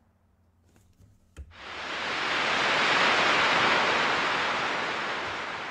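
Sea waves breaking on a shore. The surge swells in about a second and a half in and slowly eases off. Just before it comes a couple of faint clicks.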